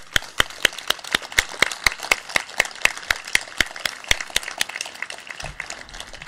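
Crowd applauding, with a few close hands clapping sharply over the wider clapping, which thins out near the end.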